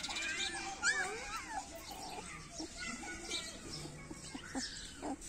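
A young puppy whining in high, wavering cries, the loudest about a second in, then a few fainter whimpers.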